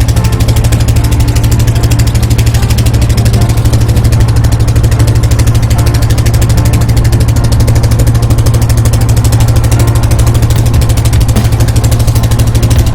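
A river boat's engine running steadily at close range: a loud, even low drone with a rapid regular pulse.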